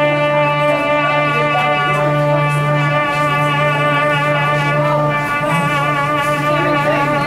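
Trumpet played into a microphone, holding one long note with vibrato that breaks off at the very end, over backing music with a low bass tone.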